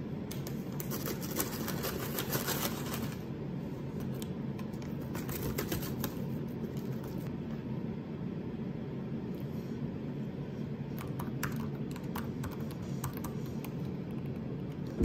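Light clicks and taps of hands working at a desk over a steady low room hum. There is a dense run of clicks in the first few seconds and another around the middle. Scattered keystrokes on a laptop keyboard come in the later part.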